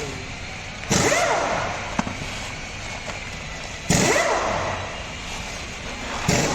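Three sudden loud bangs, about three seconds apart, each fading away slowly.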